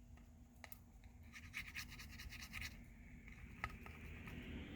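Faint scratching and rubbing, with a few light clicks, from hands and small tools working on a smartphone's frame while adhesive strip is laid on it.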